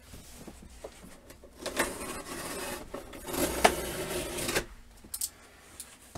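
Rasping and rustling of a cardboard box being handled and worked, with a sharp click partway through.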